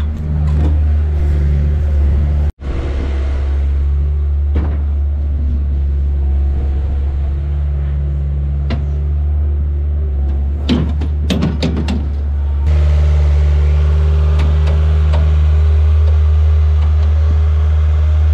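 Heavy machinery engine running steadily while dirt and sod are loaded into a dump truck bed, with a cluster of clunks and knocks a little past the middle.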